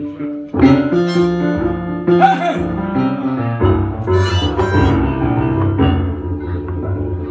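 Blues piano solo on a Yamaha stage keyboard, amplified: struck chords and right-hand runs over a steady bass line.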